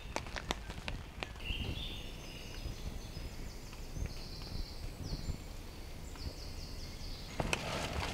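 Water dripping onto a tarp in sharp ticks for about the first second, then small woodland birds singing series of short, high, sweeping phrases. Near the end there is rustling as someone moves about the camp.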